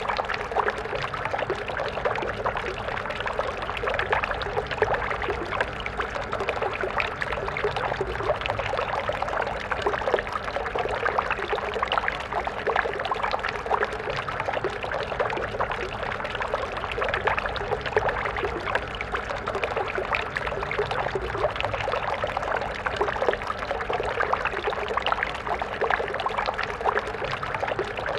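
Stream water flowing over rocks: a steady rushing and splashing, busiest in the middle and upper range, with many small gurgles and no breaks.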